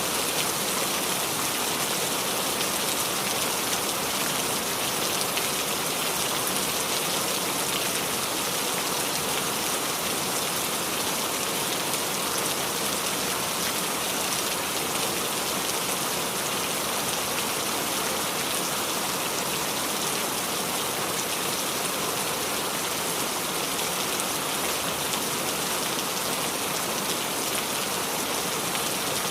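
Steady rain falling and dripping on the leaves of a small tree, an even hiss of many drops with no pauses.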